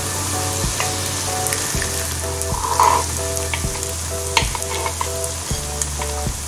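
Sukiyan dumplings sizzling steadily as they fry in a paniyaram pan, with a few light clicks as a fork turns them over. Soft background music plays underneath.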